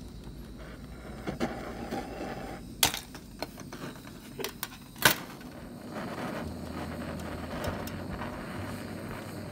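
Handheld gas-cartridge blowtorch hissing while it heats aluminium for brazing with a low-temperature aluminium rod, with a few sharp clicks and knocks about three and five seconds in; the flame noise is steadier and fuller over the last few seconds.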